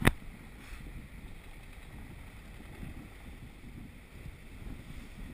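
Steady wind and water noise from a sailing yacht under way, with wind rumbling on the camera microphone. A brief sharp knock comes right at the start.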